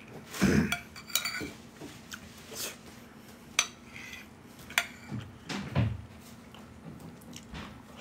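Metal spoon clinking and scraping against a ceramic plate while scooping up food: scattered separate clinks, with a couple of duller knocks about half a second in and again between five and six seconds.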